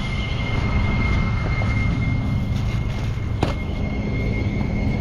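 Rollback tow truck running with its hydraulics engaged: a steady low engine rumble with a constant high whine over it, and one sharp metallic knock about three and a half seconds in.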